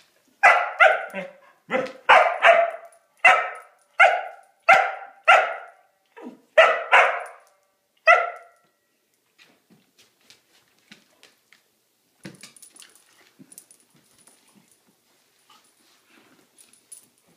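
A dog barking in play over a rope toy: about a dozen sharp barks, some in quick pairs, over the first eight seconds. Then they stop, leaving only light clicks and scuffling.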